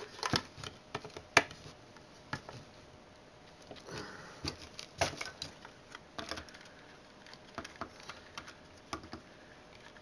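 Irregular plastic clicks and taps from a Linksys wireless router's casing and antennas being handled and pried apart by hand, with one sharper click about a second and a half in.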